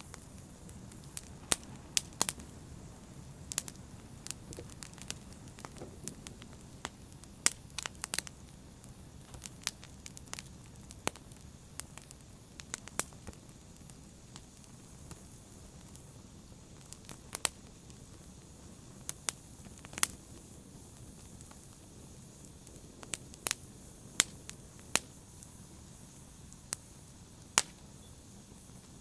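Wood fire in a fireplace crackling: irregular sharp pops and snaps, a few every second or so, over a low steady rumble of the flames.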